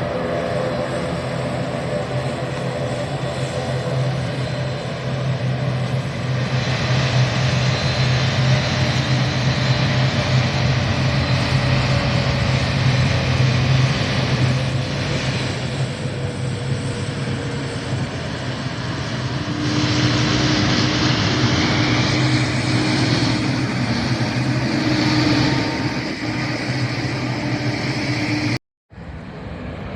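Airliner engines running, a loud steady roar with whining tones, one of which slowly falls in pitch midway; the sound cuts out for a moment near the end.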